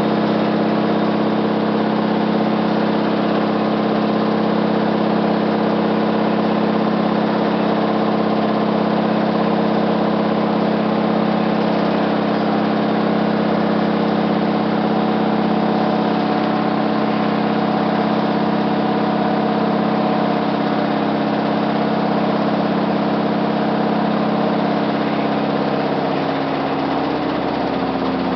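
Hotpoint WT761 washing machine spinning with worn drum bearings: a loud, steady mechanical drone. Near the end the pitch drops as the drum speed changes.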